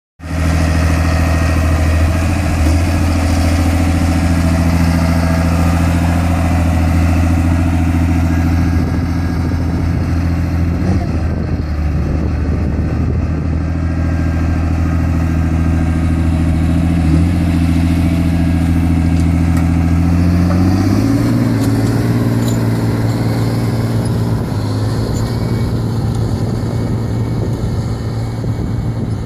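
John Deere 8000-series tractor's diesel engine running steadily under load while pulling a tillage implement; its note steps up slightly about two-thirds of the way through.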